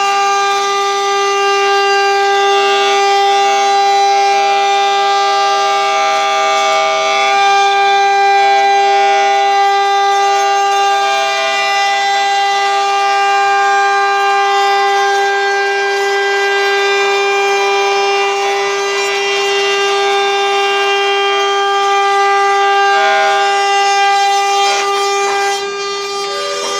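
CNC router spindle running at speed with a steady high-pitched whine. Shorter tones come and go over it as the machine moves, and it drops a little in loudness near the end.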